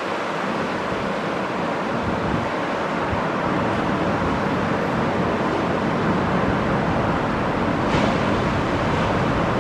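Ocean surf breaking and washing steadily along a sandy beach, with wind, and a brief brighter hiss about eight seconds in.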